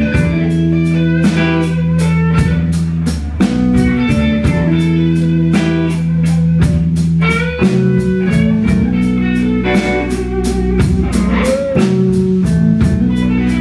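Live blues-rock band playing an instrumental passage: electric guitars and bass guitar over a steady drum beat, with no vocals.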